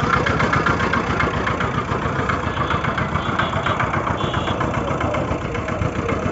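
An engine running steadily at idle, with a fast, even pulsing.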